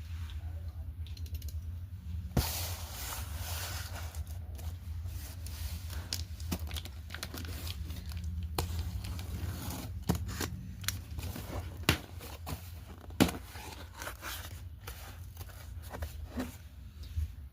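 Packaging of a box of slate pencils being torn open and handled, with crinkling and several sharp clicks, over a steady low hum.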